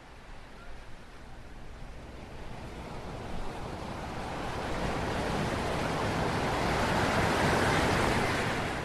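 Rushing surf of sea waves, a steady wash of noise that fades in and swells gradually louder.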